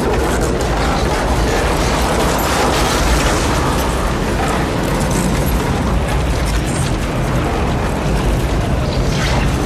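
Film sound effects of a tornado passing close by: a loud, steady roar of wind with a heavy low rumble and rattling debris.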